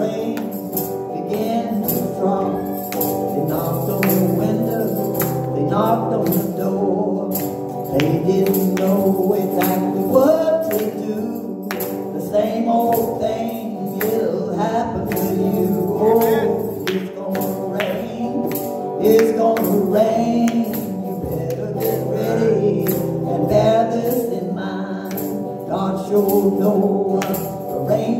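A woman singing a gospel song while playing an amplified electric guitar, with sharp percussion hits keeping the beat.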